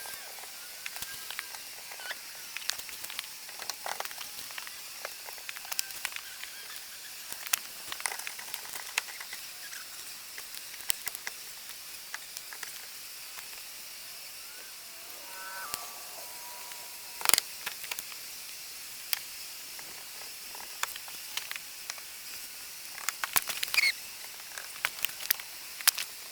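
Scattered clicks, taps and knocks of beekeeping gear and tools being handled and packed up, one louder knock about two-thirds of the way through and a quick run of clicks near the end, over a steady hiss.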